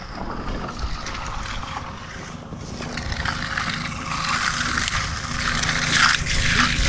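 A motor running steadily, with a rushing noise that grows louder over the last few seconds.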